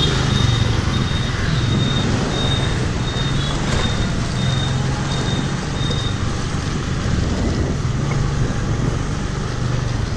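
Road traffic with an engine running, and a high beep repeating about twice a second that stops about six seconds in.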